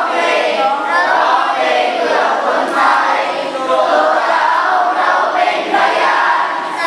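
A group of many voices singing together, loud and unbroken.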